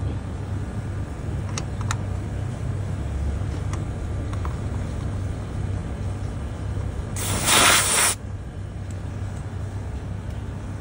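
A short, loud hiss about seven seconds in, lasting under a second: R32 refrigerant escaping as the red manifold-gauge hose is fitted onto the outdoor unit's service port. Under it, the running Mitsubishi Electric inverter condensing unit keeps up a steady low hum, with a few light clicks from the brass fittings being handled.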